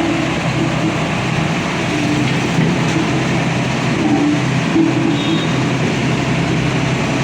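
Static three-drum road roller running: a steady engine noise with a low, even hum.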